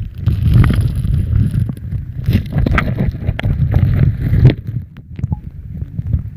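Muffled underwater noise from a submerged camera: a heavy, low rumble of water moving around the housing, with scattered clicks and knocks throughout that ease off briefly about five seconds in.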